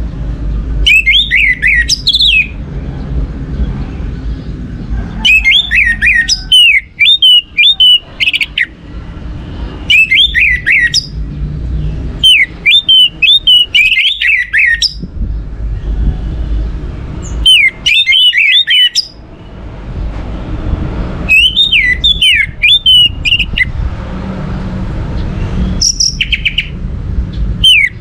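Orange-headed thrush singing: loud, rapid phrases of sharply sliding whistled notes, each burst lasting one to three seconds with short pauses between, about seven bursts in all. A steady low rumble runs underneath.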